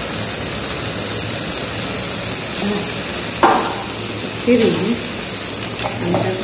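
Pieces of mirikali (mrigal carp) fish frying in hot oil with masala in a pan, a steady sizzle, with one sharp knock about three and a half seconds in.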